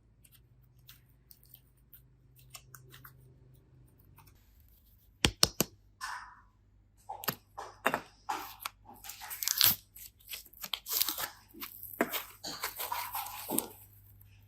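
After a few quiet seconds, two or three sharp clicks, then a long run of crackling, crunching and tearing noises from something being worked by hand.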